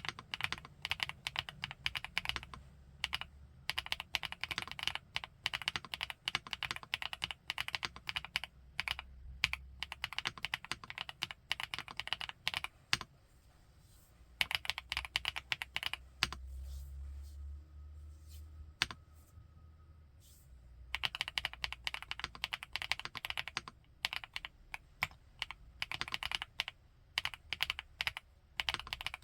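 Typing on an FL-ESPORTS Geo75 gasket-mount mechanical keyboard with Kailh x Funkeys BCP linear switches: fast, dense runs of keystrokes. About halfway through the typing stops for several seconds, leaving only a few single key presses, then resumes.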